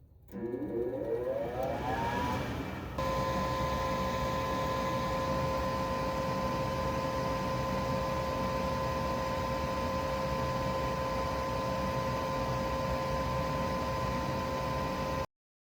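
Goodman furnace fan motor spinning up, its whine rising in pitch over about two seconds, then running steadily with a constant hum and rushing air. The sound cuts off suddenly near the end.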